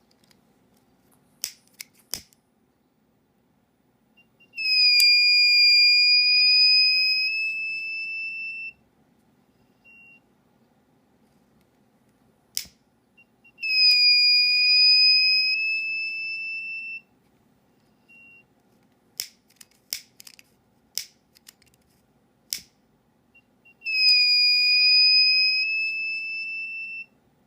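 Buzzer of a homemade diode-sensor fire alarm sounding a steady high tone three times, each for about three to four seconds, its pitch rising slightly and its level fading as it goes: the alarm triggering. Sharp clicks and short faint blips come between the tones.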